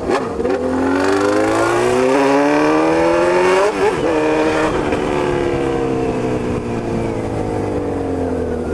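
Honda CB1000's inline-four with a straight-through exhaust, loud and close, pulling hard with its pitch climbing. About three and a half seconds in it breaks off at a gear change, then its pitch slowly falls as the bike eases off.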